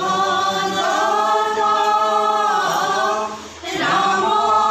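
A group of voices singing a prayer song together without instruments, in long held notes, with a brief break about three and a half seconds in.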